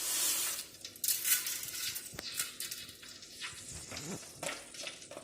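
Mustard seeds hitting hot cooking oil in a pan: a burst of sizzling at first, then scattered sharp pops and crackles as the seeds begin to splutter.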